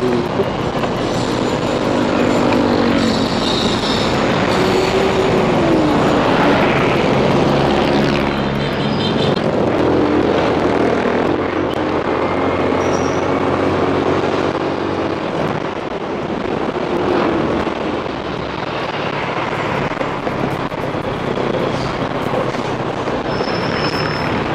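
Motorcycle engine running on the move, its pitch rising and falling with the throttle, over steady road noise.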